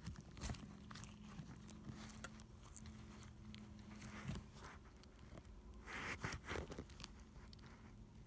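Pink slime being squeezed and poked by hand: quiet scattered sticky clicks and small pops, with a louder squishing stretch about six seconds in.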